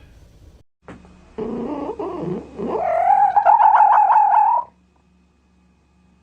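An animal's drawn-out call, starting low and rising about a second and a half in into one long wavering cry that stops suddenly near the end.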